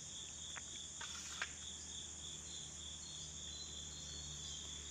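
Steady high chirring of an insect chorus, crickets or the like, pulsing evenly without a break. A few faint ticks sound in the first second and a half.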